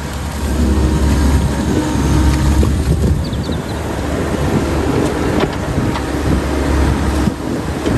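Amphibious excavator on pontoon tracks working in mud and shallow water: its diesel engine runs with a steady low rumble under a dense rush of noise.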